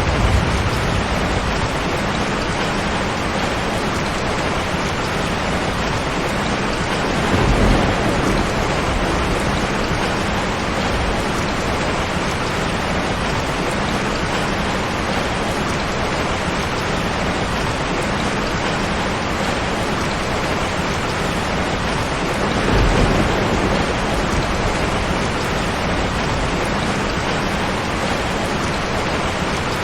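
Heavy rain pouring steadily on a tin roof, with two low rumbles of thunder, about eight seconds in and again about twenty-three seconds in.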